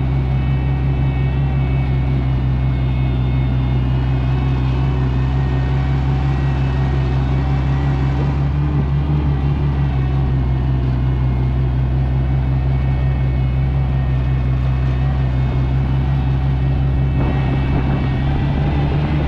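Oliver 880 tractor's gasoline six-cylinder engine running steadily under way.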